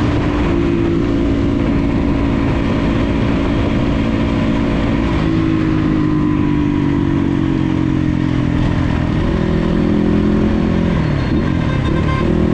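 Crossfire RM250 motorcycle engine running under way, heard from the rider's seat; its pitch sinks slowly at first, then dips and rises again about ten seconds in.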